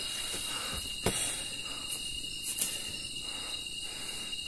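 Night insects, crickets, trilling steadily in a high, unbroken chorus, with a few sharp clicks and knocks over it.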